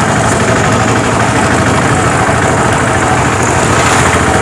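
Motorcycle engine running at a steady, low road speed, its exhaust pulsing rapidly and evenly under a constant rush of riding noise.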